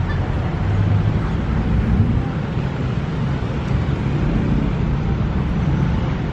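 Wind buffeting the microphone: a steady, loud, uneven low rumble with a faint outdoor hiss above it.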